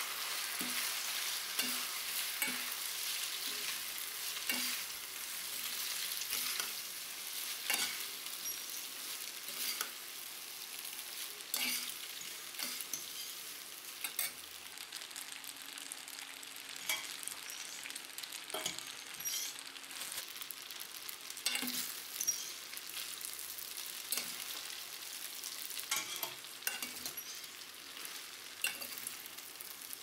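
Cooked spaghetti being tossed and stirred in a hot stainless steel pan with a metal fork and spoon: a steady sizzle, broken by frequent clicks and scrapes of the utensils against the pan.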